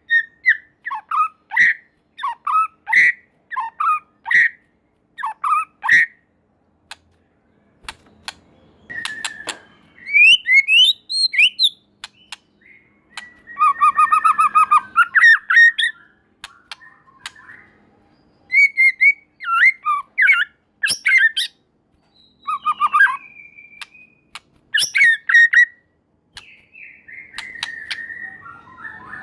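White-rumped shama (murai batu) singing loudly. It opens with a run of short, clear whistled notes, then moves into varied whistled phrases with a fast trill about halfway through and a few short pauses.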